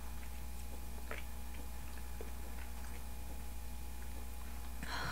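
Faint chewing and small wet mouth clicks over a steady low room hum, ending in a short voiced breath or sigh.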